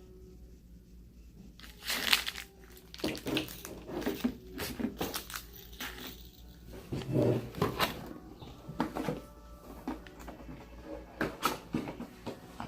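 Slime being mixed by hand with activator: irregular clicks, knocks and scraping of handling, starting about two seconds in.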